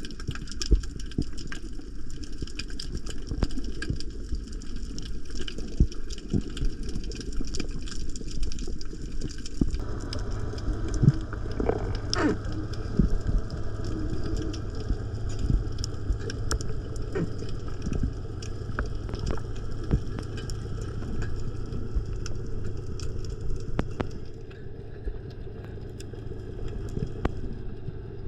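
Underwater ambience as picked up by a camera in a waterproof housing: a muffled low rumble scattered with many sharp clicks. A steady engine hum, typical of a boat's motor heard through the water, joins about ten seconds in.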